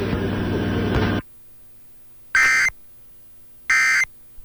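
A loud, noisy passage cuts off about a second in. Then come two short, shrill digital data bursts a little over a second apart: the Emergency Alert System end-of-message (EOM) code, whose three bursts mark the end of the alert.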